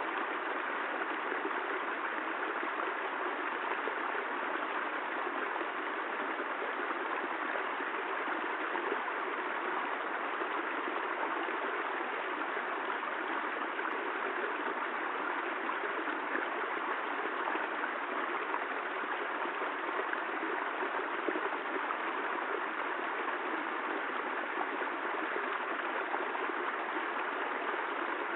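Steady rain: an even, unbroken rushing hiss of falling water, without thunder.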